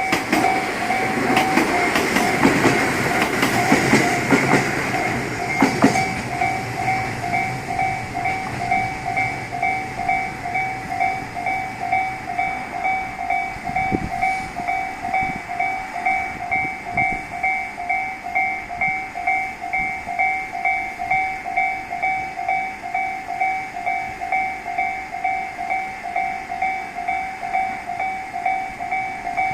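Japanese railway level-crossing warning bell ringing steadily at about two strikes a second. A two-car Tobu 8000-series train clatters through over the first six seconds or so. There is a single low thud about halfway through.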